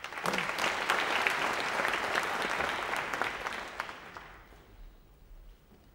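Audience clapping: a burst of applause that dies away about four to five seconds in.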